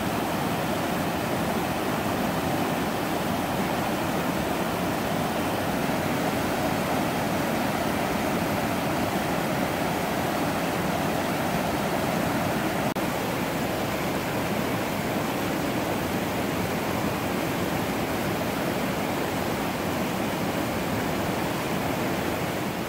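River rapids rushing steadily as white water pours over rock ledges.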